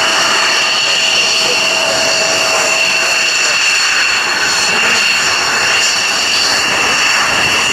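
General Dynamics F-16 Fighting Falcon's jet engine at taxi power: a steady, loud roar with a high-pitched whine that holds its pitch.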